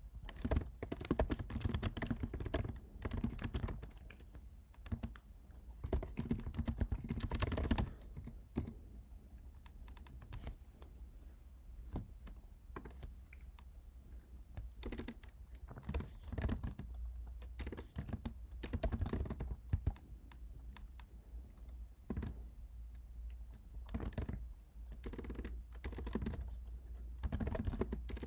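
Typing on a computer keyboard while writing code: quick runs of keystrokes, dense for the first several seconds, then sparser bursts with short pauses between them.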